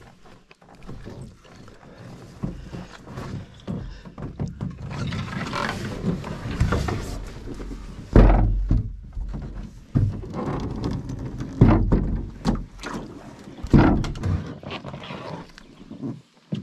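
Hollow thuds, knocks and scraping from a wood-strip canoe being handled and set down, with several heavy thumps on the hull in the second half, the loudest about eight seconds in.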